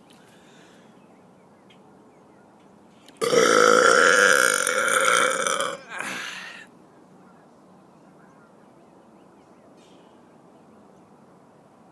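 A man's deliberate, loud belch about three seconds in, lasting over two seconds, followed straight away by a short second belch.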